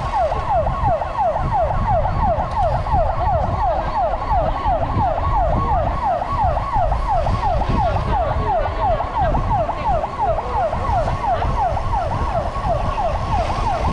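Electronic siren sounding a fast yelp, a tone falling quickly and repeating about three times a second without a break. Under it is a steady low rumble of wind on a moving bike-mounted camera.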